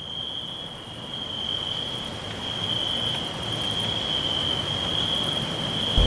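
An insect calling with one steady, high-pitched trill, over a low, even background noise that slowly grows louder.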